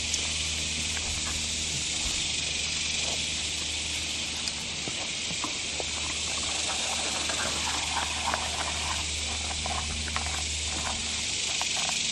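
Steady high outdoor hiss, with scattered light clicks and scrapes in the second half as a bowfishing arrow on its line is reeled back in and dragged over the muddy creek bank.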